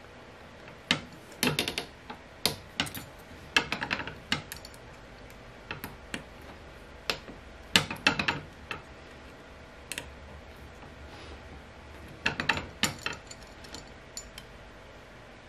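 Metal clicks and clinks in irregular clusters as an Incra 1000HD miter gauge's bar is handled on a steel table saw top and its rear fit-adjustment screws are turned.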